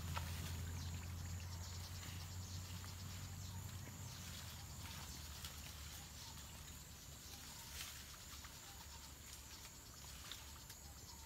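Faint tropical forest ambience: insects chirring steadily in a high pitch, with scattered light rustles and snaps of leaves and twigs as someone pushes through undergrowth on foot. A low rumble fades away over the first four seconds.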